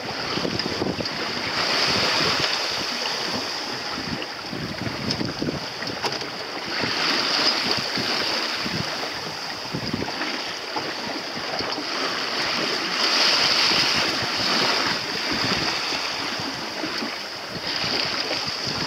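Water rushing and splashing along the hull of a boat moving through choppy sea, with wind buffeting the microphone. The rush swells and fades in waves, about every five or six seconds.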